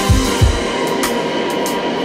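Electronic background music with a drum beat: heavy bass-drum hits in the first half second, then the kick drops out, leaving a steady backing with crisp high percussive ticks.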